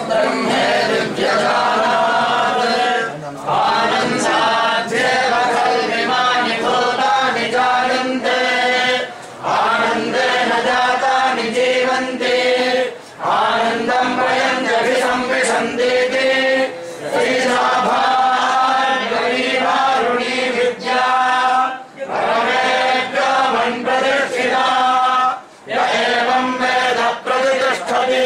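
A group of voices chanting a Hindu devotional hymn in unison, in sung phrases a few seconds long with brief breaks between them.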